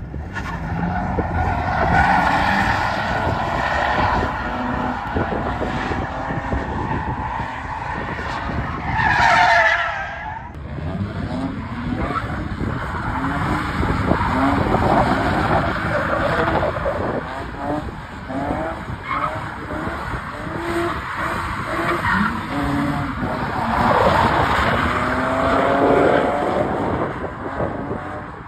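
A car drifting on a skid pad: the engine revs up and down as the tyres squeal and skid.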